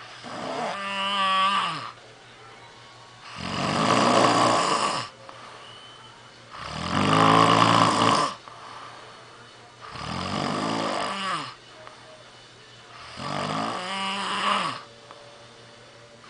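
Snoring: five snores about three seconds apart, each lasting a second or so. Some have a wavering tone, and others are breathier and a little louder.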